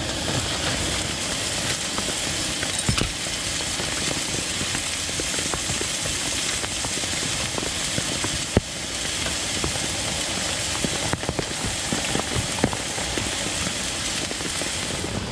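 Steady hiss of rain on the lavvu's canvas flysheet mixed with a pan sizzling on the stove, with a few light knocks from cutting a bread roll.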